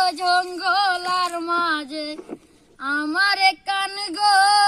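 A high voice singing a Bengali song with long, bending held notes, breaking off briefly about halfway through.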